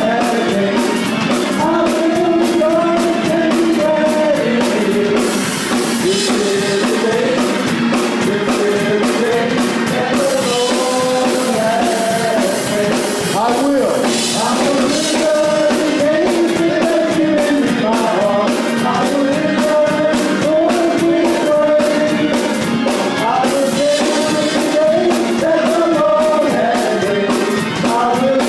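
Church worship music: voices singing over a band with drums and cymbals.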